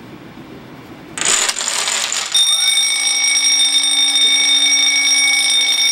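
A row of dominoes clatters down for about a second. Then an electric alarm bell starts ringing continuously, with the steady hum of a small air pump as its motor comes up to speed, inflating a balloon.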